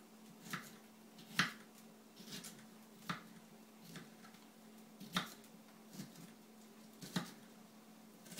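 Kitchen knife slicing a pepper on a cutting board: sharp knocks of the blade hitting the board, about one a second.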